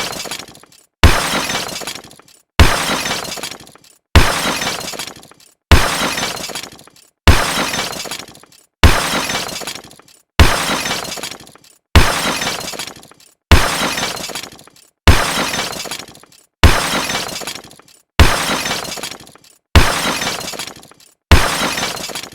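A crash sound effect played on a loop: a sudden loud impact followed by a crackling, breaking tail that dies away over about a second. It repeats about every second and a half.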